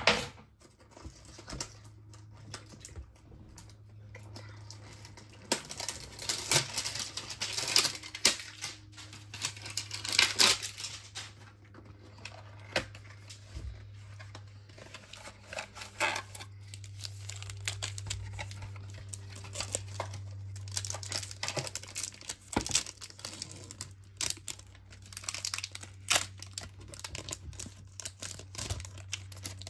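A Topps Chrome trading-card box and its foil packs being torn open, the wrappers crinkling in irregular bursts of tearing and rustling.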